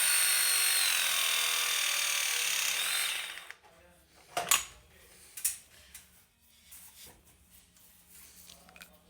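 Powered pipe press tool with U-profile jaws running a press cycle on a multilayer (MLCP) pipe fitting: a steady motor whine that stops about three seconds in, followed by a few sharp clicks.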